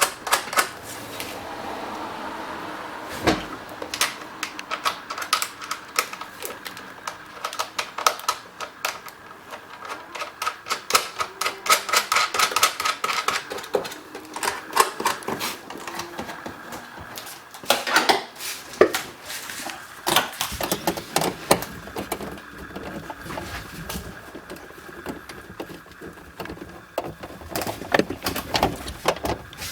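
Hand ratchet clicking in quick runs with short pauses as the tail light's three mounting screws are driven in.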